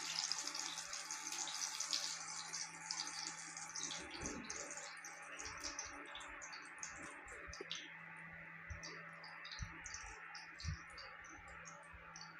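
Whole black peppercorns frying in hot oil for a tempering, sizzling and crackling. The crackle is dense for the first few seconds, then thins to scattered small pops.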